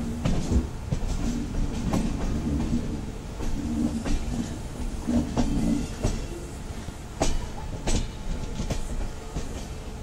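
Passenger express train coach running at low speed, heard from inside: a steady low rumble of the wheels on the track, with sharp irregular clicks as the wheels cross rail joints.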